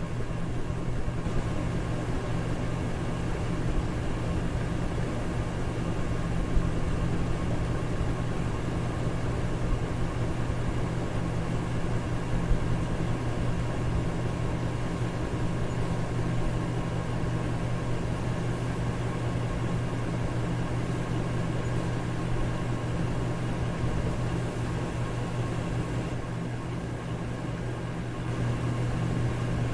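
Electric fan running steadily: an even whooshing noise over a low hum, with no change in speed.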